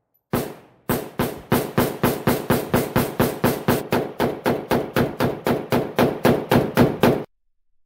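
AK-47 rifle (7.62×39 mm) fired semi-automatically: one shot, a short pause, then a fast, steady string of about two dozen shots at roughly four a second that stops abruptly.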